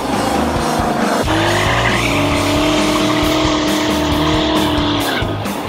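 Car engine revving up hard about a second in and held high, with tyres squealing in a burnout, then letting off near the end. Background music with a steady beat plays underneath.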